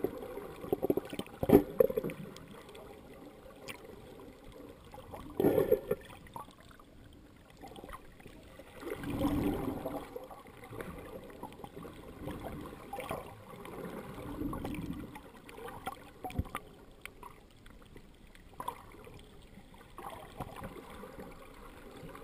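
Water sound heard underwater through a GoPro's waterproof housing: muffled sloshing and rushing with a few sharp knocks, the loudest about a second and a half in and another about five and a half seconds in, and swells of rushing water around nine to ten and fourteen to fifteen seconds in.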